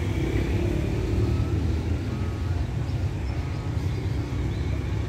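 Low rumble of a departing diesel express train, fading slightly as it pulls away down the line.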